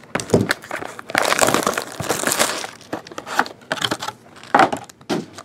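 Clear plastic shrink wrap being torn and crumpled off a trading card box, a dense crinkling from about one to three seconds in with scattered crackles either side.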